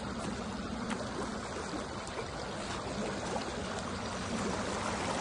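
River water flowing and lapping at the bank, a steady rushing noise.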